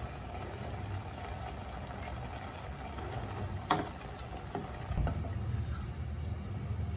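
Sliced mushrooms and onions sizzling and bubbling in a stainless steel pot as they are stirred with a wooden spatula. A sharp knock of the spatula against the pot comes about halfway through, and another thump about five seconds in.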